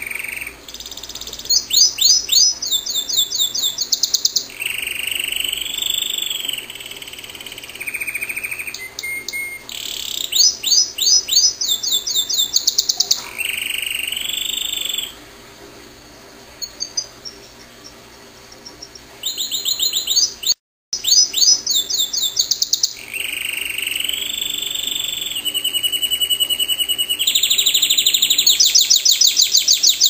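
Domestic canary singing a long, loud song of fast rattling trills and rolls mixed with held whistled notes, with a softer, quieter passage about halfway through.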